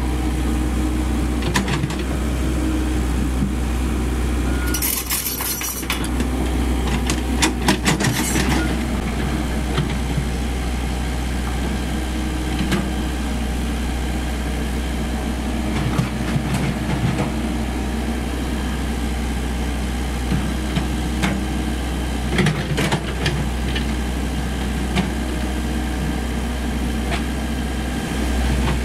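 Komatsu PC78US mini excavator's diesel engine running steadily while it works, with sharp crackling noises around five and eight seconds in and again past twenty seconds.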